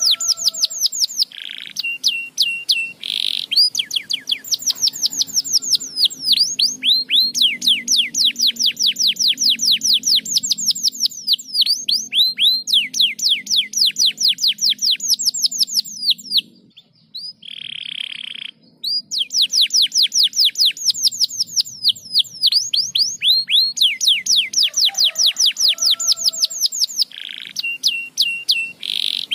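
Domestic canary singing, long rapid trills of fast repeated downward-sweeping notes, broken by a brief pause about two-thirds of the way through.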